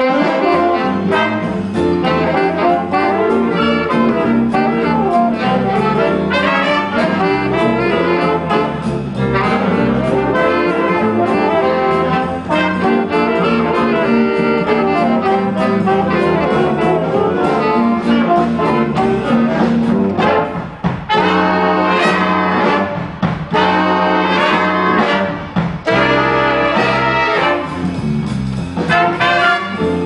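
Big-band jazz ensemble of saxophones, trumpets and trombones with electric bass, playing together loudly. The whole band comes in at once at the start, right after a brief pause.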